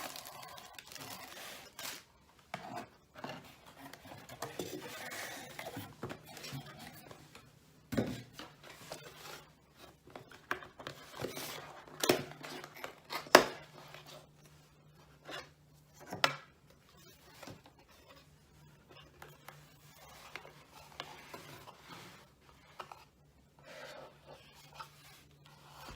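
Cardboard box and packaging being opened and handled: rustling, scraping and scattered taps and clicks, with a sharp knock about 13 seconds in.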